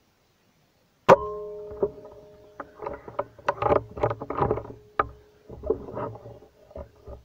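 A single sharp rifle shot about a second in, followed by a metallic ring that fades over several seconds. After that comes an irregular run of rustling and knocking sounds.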